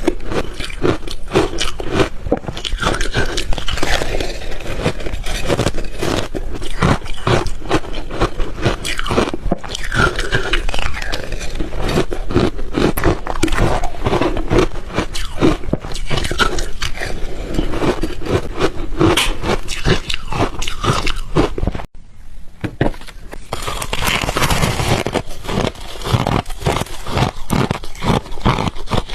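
Close-miked chewing and biting of ice: dense, rapid crunching and crackling of ice breaking between the teeth. It pauses briefly about 22 seconds in, then resumes denser.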